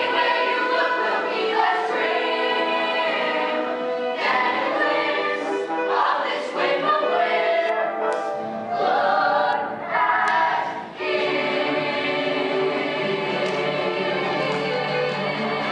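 A musical-theatre number sung by a group of voices with accompaniment. About eleven seconds in, the singing gives way to steady held notes.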